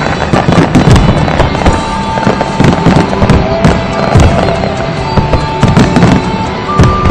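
Fireworks display: a dense, continuous volley of shell bursts and crackling bangs, several a second, with music playing along underneath.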